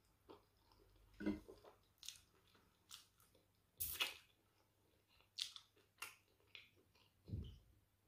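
Close-miked chewing of yam with owo soup eaten by hand: short wet smacks and clicks of the mouth at uneven intervals, the loudest about four seconds in. A low thud comes near the end.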